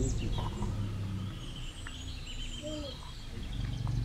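Birds chirping over a steady low rumble of outdoor background noise.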